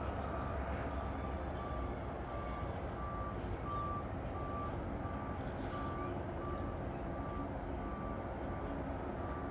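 A vehicle's backup alarm beeping steadily: a single tone repeating a little more than once a second over a steady low rumble.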